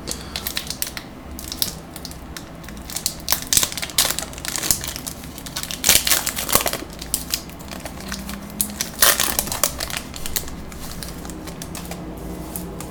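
Trading-card pack wrapper being torn open and crinkled, a run of irregular crackling rustles that thins out near the end.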